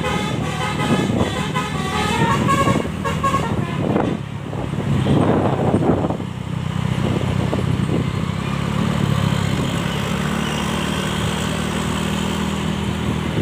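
Bus basuri (telolet) musical horn playing a pulsing melody of stepped notes for the first three seconds or so. A louder noisy swell follows about four to six seconds in, and then a large diesel engine runs steadily with a low hum.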